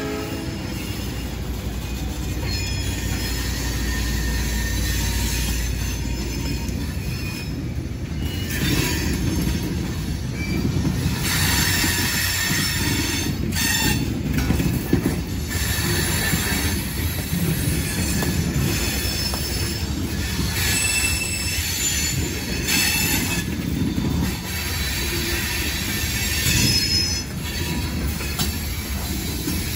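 Freight train passing close by: the diesel locomotive's low engine rumble for the first several seconds, then covered hopper cars rolling past with steady wheel-on-rail clatter and intermittent high-pitched wheel squeal.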